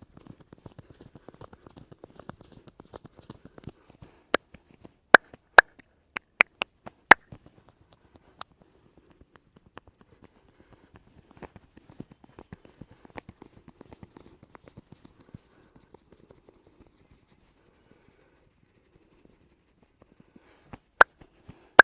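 Fast hand massage: quick, light pattering of hands on the head and back, about ten taps a second. It is broken by several loud, sharp strikes bunched together from about four to seven seconds in, and two more near the end.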